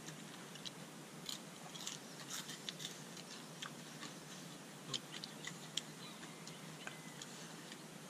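Quiet eating sounds: scattered small clicks and smacks of chewing and handling food as people eat seafood papaya salad by hand, over a faint steady background hiss.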